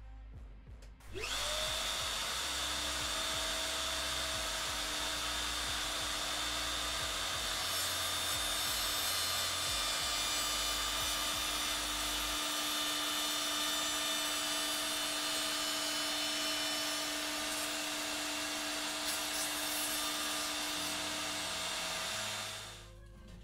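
A CMT8E 1010-watt plunge router spins up about a second in, then runs at speed while its 45-degree chamfer bit cuts along the edge of a fir board: a steady high motor whine over cutting noise. It shuts off and dies away near the end.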